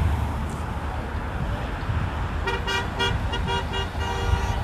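Road traffic passing close by with a low rumble, and a vehicle horn tooting in a rapid series of short beeps about two and a half seconds in.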